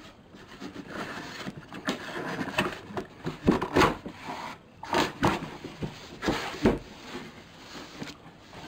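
Corrugated cardboard shipping box being opened by hand: scraping, rubbing and a series of short knocks as the flaps are pried up and folded back.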